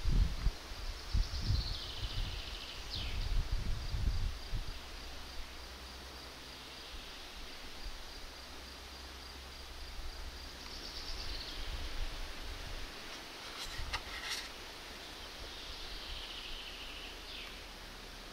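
Forest ambience: a songbird sings a short descending trilled phrase three times, over a faint, steady high-pitched whine. There is low wind rumble on the microphone in the first few seconds, and a couple of sharp clicks at about 14 s.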